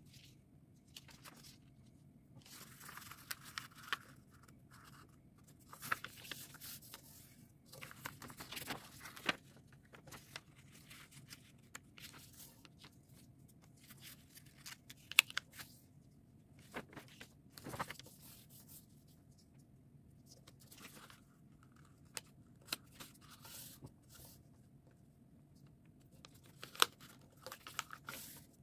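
A sheet of printer paper rustling and crackling in irregular bursts as it is folded and creased by hand, with a few sharp snaps as folds are pressed down.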